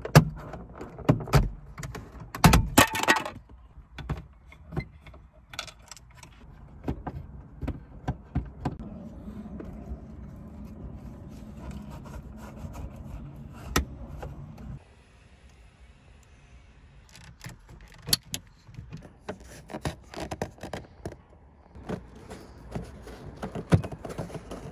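Plastic clicks, snaps and rattles of a car's dome light and overhead console being unclipped from its metal clips and lowered from the headliner, with a loud cluster of snaps about three seconds in. A low steady hum runs through the middle and cuts off suddenly, and near the end softer scrapes and taps come as the microphone wire is pushed into the headliner edge.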